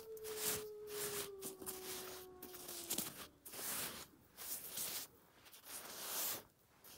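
Brush scrubbing rust off an old steel wrench in short repeated strokes, several in quick succession with brief pauses. A faint steady hum sinks slowly in pitch under the first three seconds and stops.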